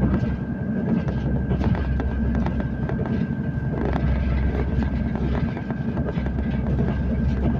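Passenger train running at speed, heard inside the carriage: a steady low rumble with rattles and small clicks from the wheels and bodywork, and a steady high whine throughout.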